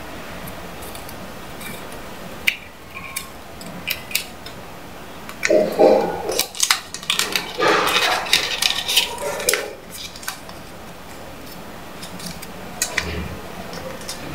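A paper banknote being folded and creased by hand: crisp crinkling and crackling of the note, with scattered sharp clicks and a denser run of crinkling about halfway through.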